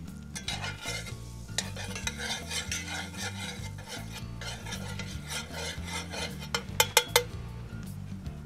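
Butter and oil sizzling in a hot cast-iron skillet while a metal spoon stirs and scrapes around the pan. Three sharp clinks about seven seconds in.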